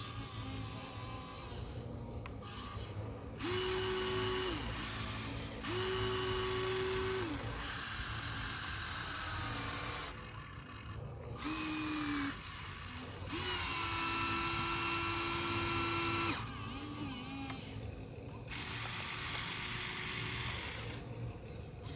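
Electric motors of a Huina 1593 RC excavator whining in repeated short runs as the boom, arm and bucket move, each run starting and stopping abruptly, some holding one steady pitch.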